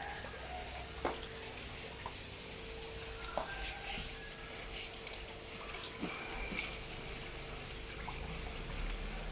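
Water trickling from a garden hose over wet concrete while a scalded wild boar carcass is scrubbed by hand, under a faint steady hum. A few sharp knocks come about a second in, again after three seconds, and at about six seconds.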